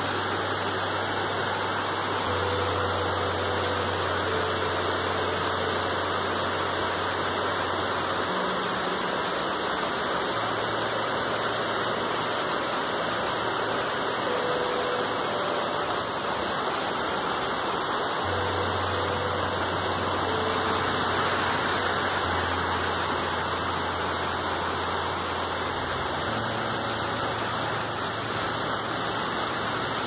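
Heavy rain pouring down: a dense, steady hiss of falling water.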